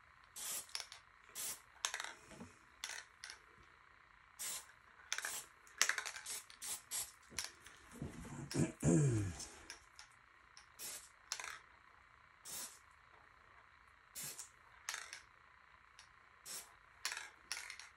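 Aerosol spray-paint can fired in many quick short bursts, each hiss a fraction of a second long, coming irregularly and thinning out in the second half.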